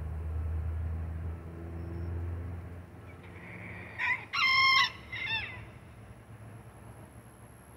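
A rooster crows once, about four seconds in: a short note, a longer held note, then a short falling tail. A low drone fades out in the first few seconds before it.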